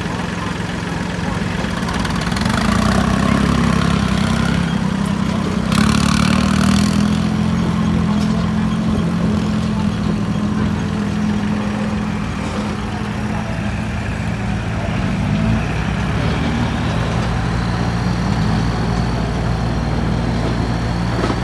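Diesel engines of modified Kubota tractors running under load while pushing sand. The engine sound swells for a few seconds about two seconds in, with a brief hissing rush about six seconds in.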